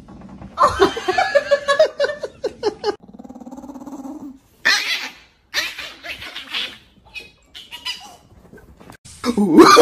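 Small dogs barking and yapping in short cries, with a low, buzzing growl from a chihuahua about three seconds in as it faces off with a cat.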